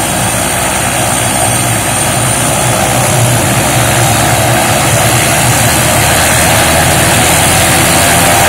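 MD 500E helicopter's Allison 250 turboshaft engine running on the ground with the main rotor turning slowly: a steady dense turbine noise with a thin high whine that rises slightly, growing a little louder.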